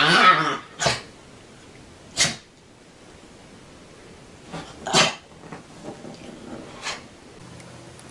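A dog: a wavering pitched whine or howl that ends about half a second in, then several short, sharp bursts a second or more apart.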